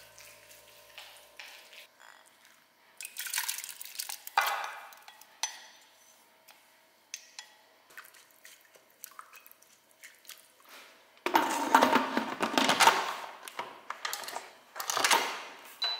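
Kitchen handling sounds: wooden chopsticks tapping and scraping a ceramic bowl, and stirring tomato porridge in the metal inner pot of an electric pressure cooker. Near the end comes a louder stretch of scraping and clattering as the cooker's lid goes on.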